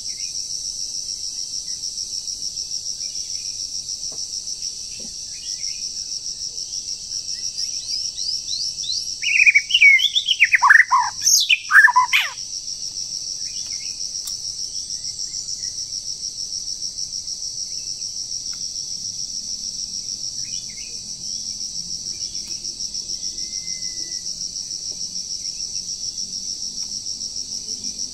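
Shrill, steady, fast-pulsing drone of forest insects. A loud burst of bird song, made of quick whistled notes sweeping up and down, comes about a third of the way in and lasts some four seconds.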